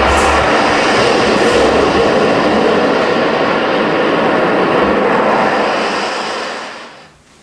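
Loud, steady rushing noise from the show's sound design, like an aircraft or jet, that fades away near the end.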